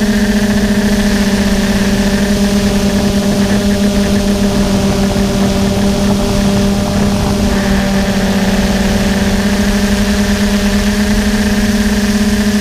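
Quadcopter electric motors and propellers giving a loud, steady buzzing hum in flight, picked up by the camera mounted on the craft itself. Its tone shifts slightly for a few seconds in the middle.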